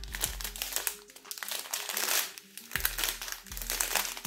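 Small plastic zip bags of diamond-painting drills crinkling in several spells as they are handled, over soft background music with held low notes.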